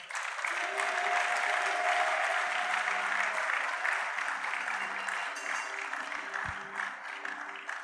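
A congregation applauding and cheering, easing off slightly toward the end.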